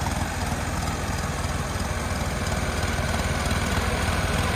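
Diesel tractor engines of a Ford 3600 and a John Deere running steadily with a fast low pulse, growing a little louder toward the end.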